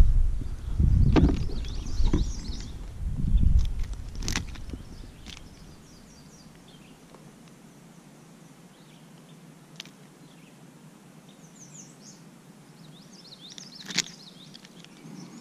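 Handling noise from landing a small pickerel on a kayak: low rumbling, knocks and a few sharp clicks over the first few seconds as the fish is held and clamped in a plastic fish grip. It then quietens, with small birds chirping and the odd click near the end.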